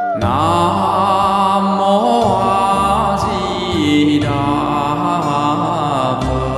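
Buddhist devotional chanting sung by several voices together, with an instrumental backing whose low notes change about every two seconds.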